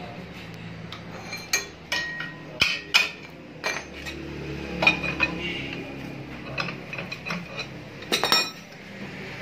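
Steel bars and tools clinking and knocking against a metal machine fixture as a refrigerator compressor is set up in it, about a dozen irregular sharp clanks with a cluster near the end, over a steady low hum.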